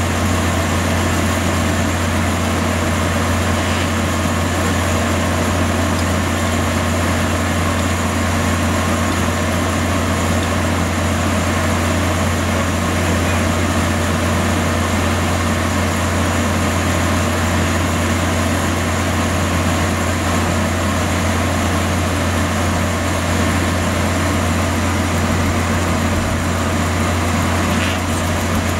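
A large circular sawmill running, its drive motor and big spinning blade making a steady low drone that does not change.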